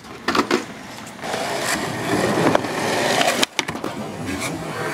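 Skateboard wheels rolling on concrete, building in speed. A few sharp clacks come about three and a half seconds in, then the board scrapes along a box ledge and ends with a sharp clack.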